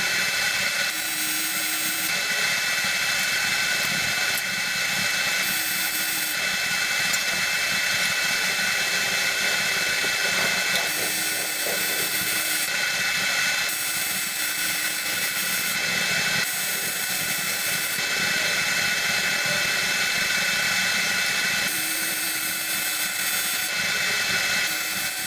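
AC TIG welding arc on aluminium: a steady, harsh electrical buzz with a constant hum under it, held without a break.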